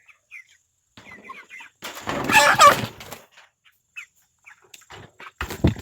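Meat chickens clucking and peeping while waiting to be fed, with a louder burst about two seconds in and a sharp thump near the end.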